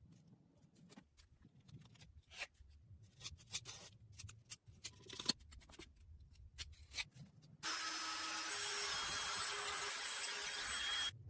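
Scattered clicks and scrapes of tools working on small metal parts, then, about two-thirds of the way in, a loud steady hissing noise starts up, as from a power tool running on the rusty metal.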